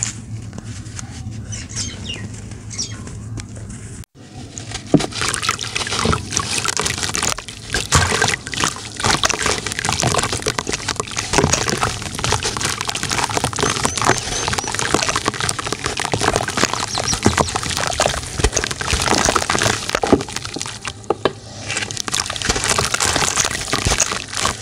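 Hands crumbling dry, dusty clumps of dirt, a gritty, crunchy sound, for the first four seconds. After a sudden break, wet crumbling follows: clumps crushed over a tub of water, dense crackling with grit and pieces splashing into the water.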